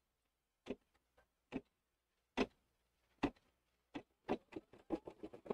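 Embroidery machine starting to stitch a placement line: separate sharp clicks of the needle mechanism, about one a second at first, coming faster and faster near the end as the machine picks up speed.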